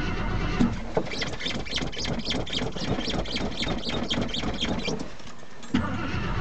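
A cold 1981 Jeep J10's AMC 360 V8 being cranked by the starter, with a fast rhythmic squeaking for about four seconds. It goes quiet briefly near the end, then a sharp clunk as it turns over again, the engine struggling to fire in the cold.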